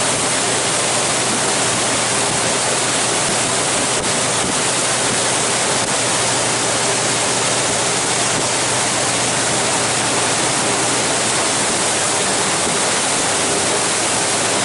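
Steady, loud rushing noise aboard a moving glacier cruise boat, the wind and water rushing past it, with a faint low hum under it.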